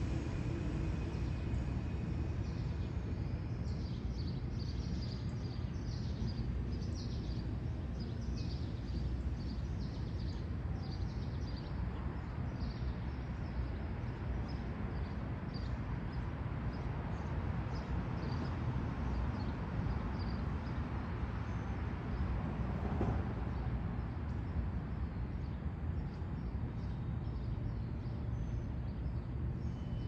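A small bird chirping in short high notes, about two a second, over a steady low outdoor rumble; the chirping thins out and stops after about twenty seconds.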